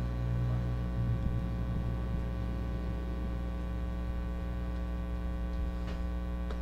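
Steady electrical mains hum in the broadcast audio, with two faint ticks near the end.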